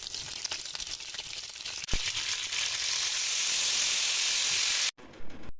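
Food frying in hot oil in a pan, a steady sizzle with a sharp knock about two seconds in, after which it grows louder and more even. It cuts off abruptly near the end, followed by a brief separate burst of sizzling.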